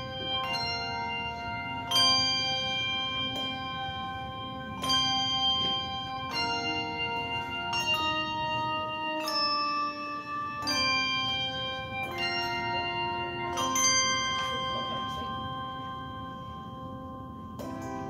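Handbell choir ringing a slow run of chords, a new chord struck roughly every second and a half, each left to ring on. About fourteen seconds in, a chord is held and fades away, with a softer chord struck near the end.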